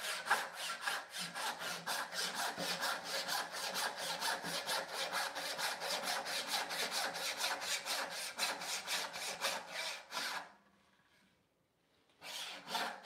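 Brass-backed tenon saw cutting down the grain of a maple board in quick, steady strokes, about four or five a second. The sawing stops about ten seconds in, and a few more strokes follow near the end.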